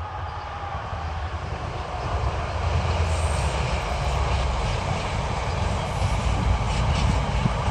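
Diesel freight locomotive approaching, its engine's low rumble and the noise of the train growing steadily louder.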